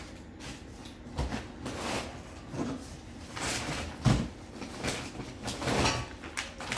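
Hands rummaging in a cardboard shipping box: packing paper, bubble wrap and a plastic bag rustling and crinkling, with a few knocks against the cardboard, the loudest a dull thump about four seconds in.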